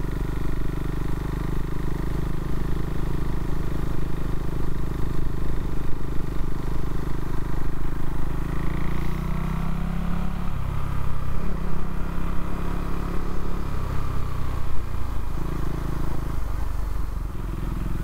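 Single-cylinder engine of a Husqvarna Svartpilen 401 with a Leo Vince LV-10 exhaust running under way. Its engine speed rises and falls several times, most clearly about halfway through.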